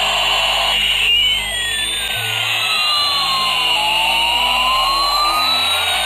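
Battery-powered toy Airbus airliner playing its electronic jet-engine sound: a loud steady hiss with a whistling tone that sweeps down in pitch and then climbs back up.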